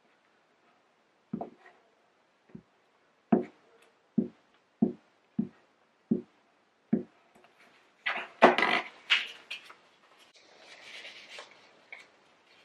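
A glue stick rubbed across a piece of paper on a tabletop, each stroke giving a short knock, about nine in a row. Then the paper rustles and crackles as it is picked up and folded into a small cone; this crackling is the loudest part.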